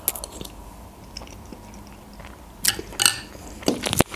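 Close-miked eating sounds from a woman with a spoonful of lentil soup in her mouth: quiet chewing and swallowing, then a few short sharp mouth clicks near the end.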